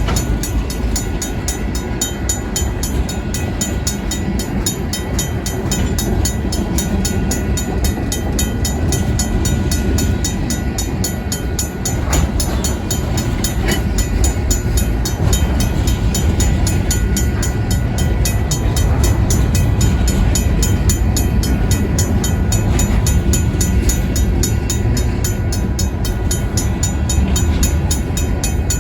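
Union Pacific freight train rolling slowly through a grade crossing, a steady low rumble of locomotives and cars. Over it, the crossing's RACO mechanical bell rings with rapid, even strokes.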